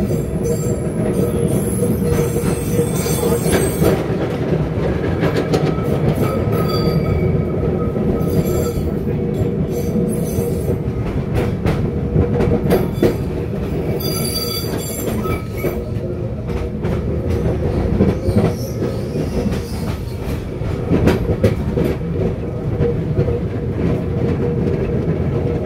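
Heritage electric tram running along its track, heard from on board: a steady rumble with scattered clicks and knocks, and several spells of high-pitched steel wheel squeal.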